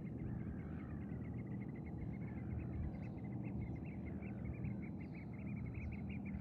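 Gulls calling: a dense chatter of short high calls with repeated downward-sliding cries, over a steady low hum.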